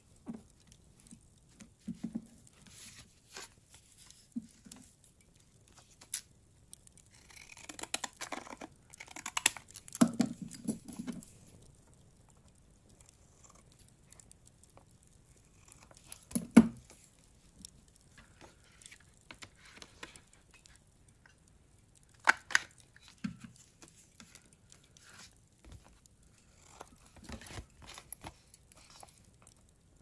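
Paper being handled and cut with scissors: irregular rustling and crisp snips and clicks, with the loudest sharp ones about ten, sixteen and twenty-two seconds in.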